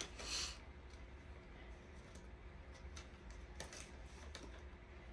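Faint scattered clicks of small plastic toppers being handled and fitted on, with a brief rustle near the start.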